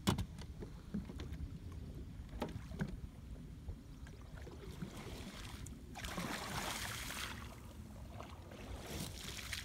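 Kayak paddle strokes in lake water from a standing paddler, with a sharp knock right at the start and a longer swish of water about six seconds in, another shorter one near the end, over a low steady rumble.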